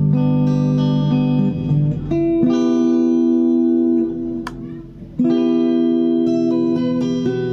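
Guitar played through an acoustic-guitar simulation patch on a Zoom G1X Four multi-effects pedal: ringing chords, a short break with a single click about halfway through, then the chords again.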